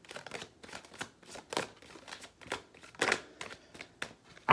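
Deck of tarot cards being shuffled by hand: a quick, uneven run of soft card strokes and rustles, a few of them louder.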